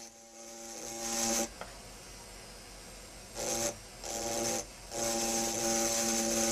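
Handheld engraving drill's burr grinding into an optical crystal perfume bottle in four bursts, a steady buzzing whine with a high hiss. The first swells up over about a second, two short strokes follow past the middle, and a longer one comes near the end.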